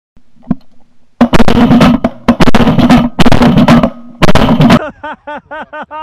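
Loud drum-heavy music coming in about a second in as four heavy pulses over a steady low tone, cutting off near the end, where a voice is heard.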